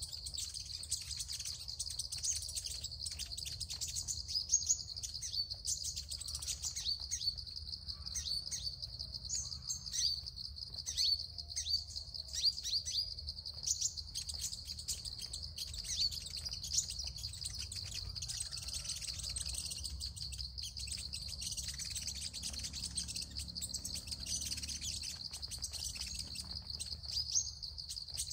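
Sunbirds chirping and twittering, with many quick, high, falling notes that come thickest in the first half and thin out later. Under them runs a steady high-pitched insect drone.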